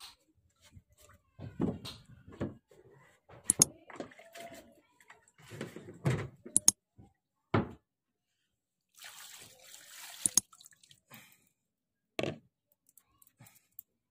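Scattered knocks and thumps of a barefoot person moving about on a wooden plank deck and handling a plastic water dipper and basin, with a brief pour of water about two thirds of the way in.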